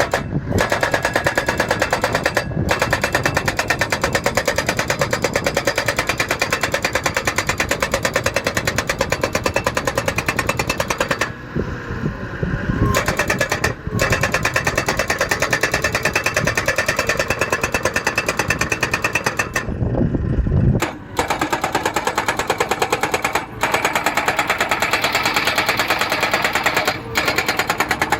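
Crash barrier installation machine's post-driving hammer pounding in rapid, steady blows, pausing twice for a second or two while its engine keeps running.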